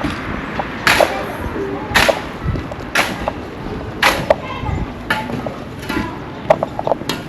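Sharp, regular strikes about once a second, with lighter knocks in between: a construction worker hammering or striking with a hand tool.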